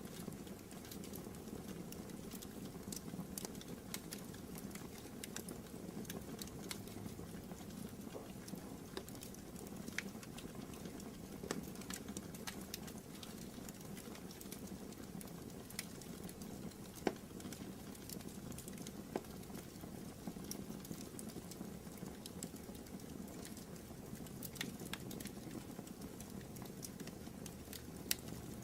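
Fire burning in a fireplace: a steady low rush of flames with scattered sharp crackles and pops.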